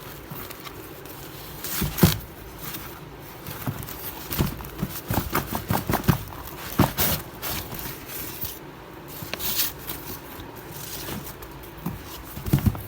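Handling noises while unpacking a mixer grinder: irregular knocks, scrapes and rustles of the packaging, with the sharpest knock about two seconds in and a quick run of knocks a few seconds later.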